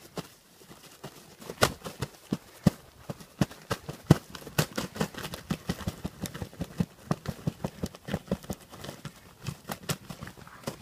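A shot Rio Grande wild turkey gobbler flopping in its death throes, its wings beating against the ground in rapid, irregular thumps.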